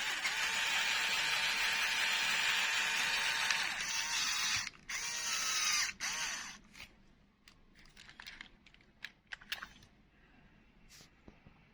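The electric drive of a LEGO Technic RC car running at speed, a loud steady whine of motor and plastic gearing. It cuts out about four and a half seconds in, runs again for about a second, then winds down with the pitch gliding. A few seconds of scattered plastic clicks and knocks follow.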